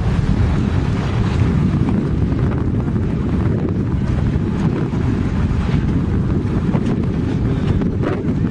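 Steady wind buffeting the microphone on a boat at sea, a dense low rumble, with sea water washing around the hull.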